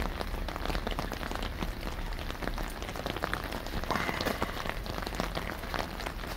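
Steady heavy rain pattering on an umbrella held close over the phone, a dense, even patter of many individual drops.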